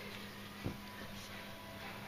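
Quiet room tone with a steady low hum and one short click about two-thirds of a second in.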